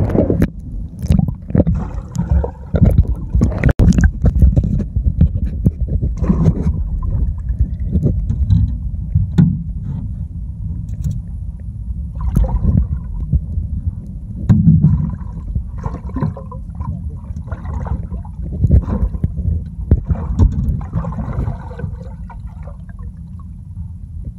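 Low, muffled sloshing and gurgling of water over a phone microphone held underwater, with irregular knocks and bumps as the phone moves.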